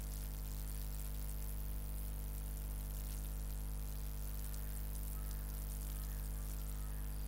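Steady low electrical hum with a layer of hiss: the background noise of the recording chain, with nothing else happening.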